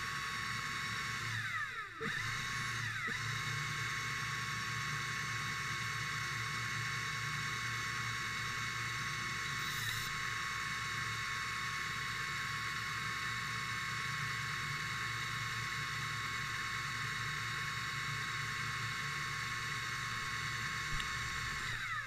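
Electric motor of an underwater scooter (diver propulsion vehicle) running steadily underwater, a constant whine over a low hum. About two seconds in the whine briefly drops in pitch and comes back up, and dips once more a second later.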